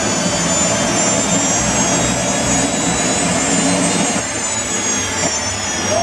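Rolls-Royce 250-C18 turboshaft engine of a Y2K turbine superbike running, a high turbine whine over a steady rush of noise. The whine climbs slightly, then falls away after about four seconds.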